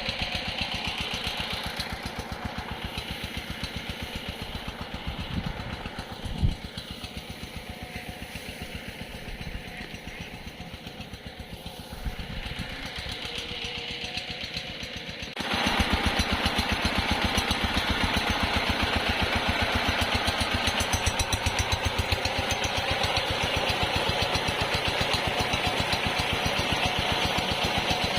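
Diesel irrigation pump engine running steadily with an even, rapid firing beat; about halfway through it suddenly becomes louder and fuller, with a single short knock before that.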